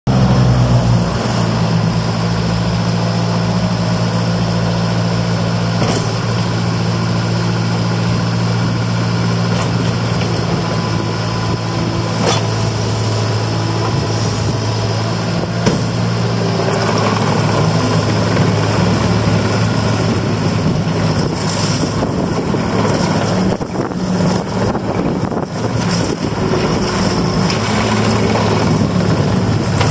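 Diesel engine of a Case TR270 compact track loader running at a steady idle. For several seconds in the second half its steady note gives way to a rougher, more changing sound.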